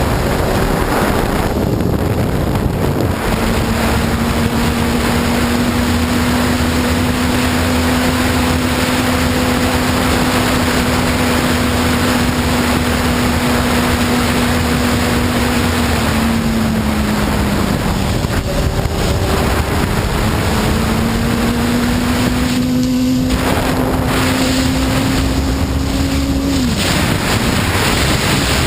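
Honda CBR954RR inline-four sport bike engine running at steady cruising revs under heavy wind rush on the microphone. The engine note dips partway through, climbs back up, and falls away sharply near the end as the throttle is rolled off.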